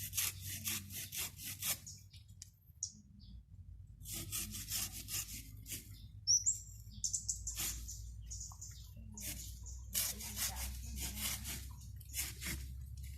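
Hand saw cutting through a sea hibiscus branch in quick back-and-forth strokes, in three spells with pauses between. A bird chirps briefly in the middle.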